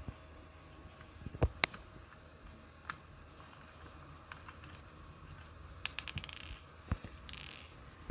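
Small sharp metallic clicks and taps from a screwdriver and tiny screws on a laptop drive bracket, with a quick rattling run of clicks about six seconds in and a brief scrape just after.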